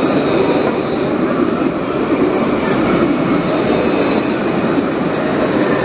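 Alstom Citadis low-floor tram passing close by at low speed: a steady rumble of wheels on rail, with a faint high whine over it for the first second or so.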